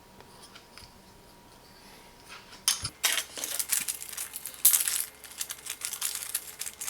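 Plastic packaging crinkling and rustling with small hard items clicking, plus one knock. It starts about three seconds in, after a quiet start.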